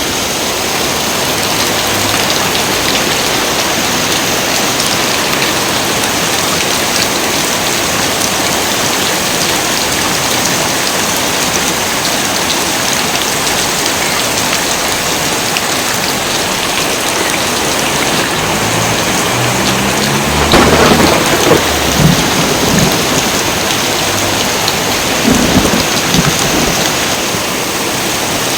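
Heavy rain falling steadily with a dense hiss. Thunder rumbles in about two-thirds of the way through, with a loud clap about 20 seconds in and a second rumble a few seconds later.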